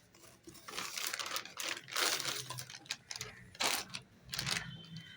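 Watch packaging being handled during an unboxing: irregular rustling and clicking bursts, paper or plastic crinkling as the box and wrapping are opened.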